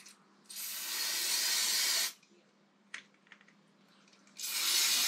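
Aerosol can spraying cleaner onto a motorcycle's handlebar electrical switch, in two steady hisses: one about a second and a half long, then a shorter one near the end, with light handling clicks between.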